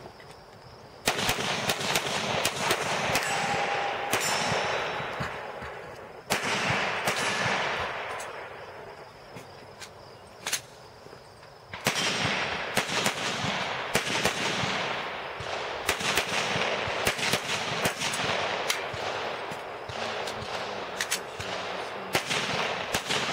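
Glock pistol fired in rapid strings of shots, each sharp crack trailing off in a ringing echo. About a third of the way in the firing pauses for a few seconds, broken by a couple of single shots, then resumes in a steady run of shots until the end.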